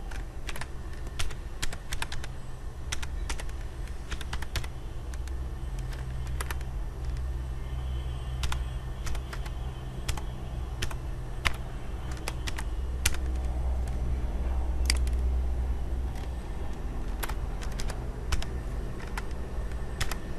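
Typing on a computer keyboard: irregular, spaced-out key clicks as a password is entered, over a steady low hum.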